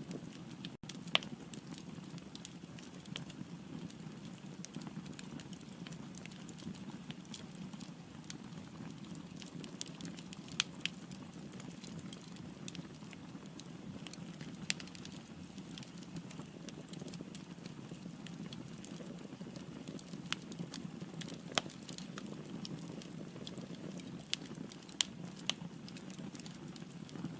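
Firewood burning in a fireplace: a steady low rumble of flame with frequent small crackles and about five louder sharp pops scattered throughout.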